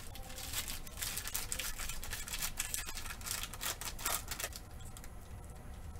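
Foil trading-card pack wrapper crinkling and rustling as it is handled, a quick run of scratchy rustles.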